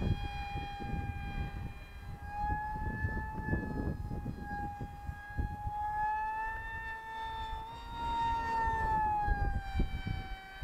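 Electric motor of a Styrofoam radio-controlled MiG-35B jet whining steadily in flight; the pitch rises a little about two-thirds of the way in, then drops back. Gusty wind rumbles on the microphone underneath.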